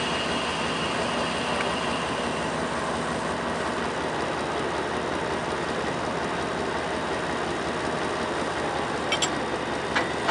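Lxd2 narrow-gauge diesel locomotive standing with its engine idling steadily. A high whine fades away in the first two seconds, and a few sharp clicks sound near the end.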